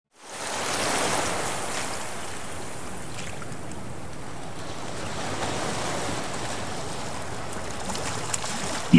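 Ocean waves washing in a steady rush of surf, fading in over the first half second.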